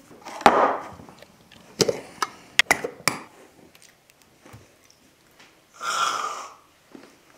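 A thump about half a second in, then a few sharp clicks and knocks as jars and a can are handled. Near the six-second mark comes a short hiss as an aerosol whipped-cream can is sprayed straight into the mouth.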